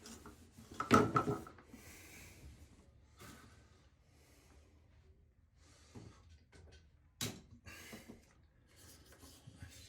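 Tools and parts handled at the work: a loud knock with a brief ring about a second in, a sharp knock about seven seconds in, and soft scraping and rustling between.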